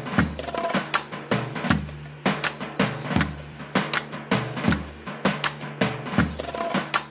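Background music with a steady drum beat, about two hits a second, over a bass line.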